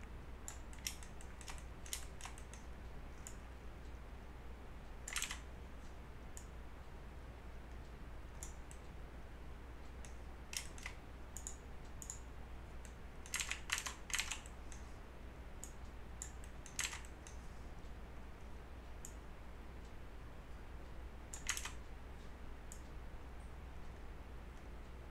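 Scattered clicks of a computer mouse and keyboard, some single and some in quick bunches of three or four, over a low steady hum.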